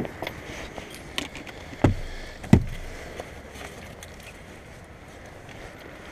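Rear door of a car being opened and handled: a latch click, then two dull thumps about two seconds and two and a half seconds in, over steady outdoor background noise.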